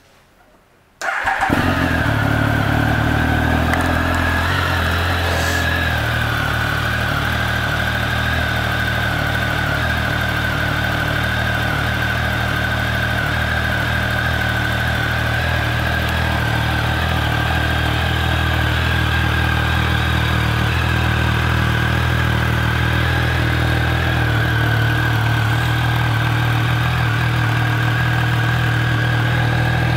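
2011 Triumph Speed Triple 1050's inline three-cylinder engine, with an Arrow exhaust, being started: it catches suddenly about a second in and then runs at a steady idle. A steady high whine runs along with it.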